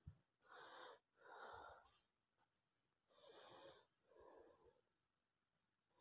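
Near silence, broken by four faint, short swishes: two about a second in and two more around three to four seconds in.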